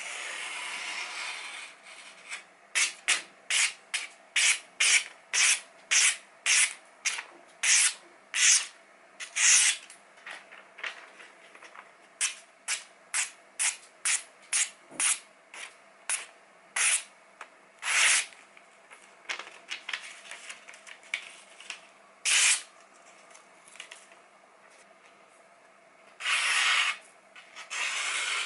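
Sharpened kitchen knife slicing through a glossy magazine page, a paper test of the edge. It makes short crisp rasping cuts, about two a second for several seconds, then more scattered ones. There are longer, louder paper sounds about a second in and again near the end.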